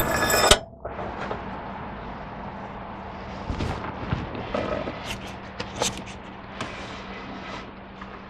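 Stick-welding arc crackling and sizzling steadily with scattered sharp pops, after a short loud noise right at the start.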